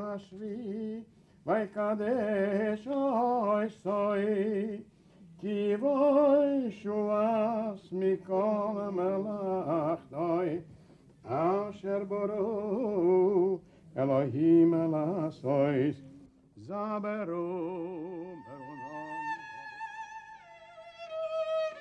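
A solo voice sings a slow, ornamented chant with heavy vibrato, phrase by phrase with short pauses. Toward the end a violin takes over with long held notes.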